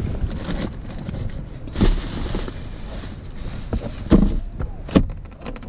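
Camera microphone rubbing and bumping against a leather seat, with a few sharp thumps over a steady low rumble.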